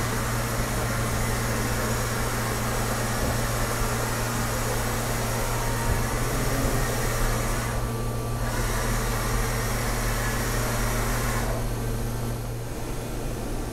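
Large 50-taper CNC gantry bridge mill running, a steady machine hum with a broad hiss as its spindle head moves over the table. The hiss drops away briefly about eight seconds in and again near the end.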